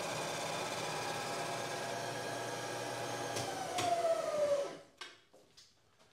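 Bridgeport knee mill running steadily with a boring cutter in the spindle. About three and a half seconds in it is switched off: a falling whine as the spindle winds down, stopping just before five seconds, then a few faint clicks.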